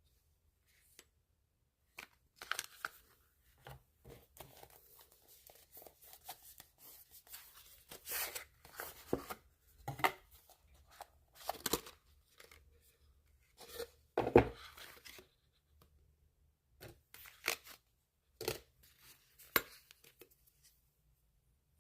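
Product packaging being torn open and handled: irregular tearing and rustling with sharp clicks, the loudest burst about two-thirds of the way through.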